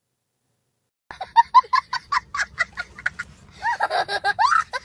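High-pitched cackling that starts suddenly about a second in: a quick run of short, sharp notes at about five a second, then longer notes that swoop up and down.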